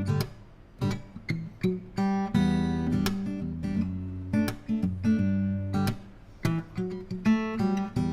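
Segovia D07 GN dreadnought acoustic guitar playing strummed chords that ring out, broken by short pauses and quick single strokes.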